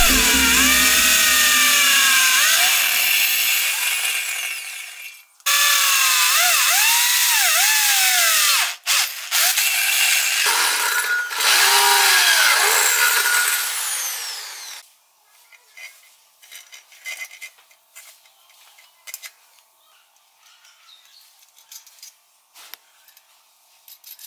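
Handheld electric drill boring into a bicycle frame's down tube, the bit squealing with a pitch that rises and falls; the drilling stops and restarts a few times, then stops for good about 15 seconds in, leaving only faint clicks and taps.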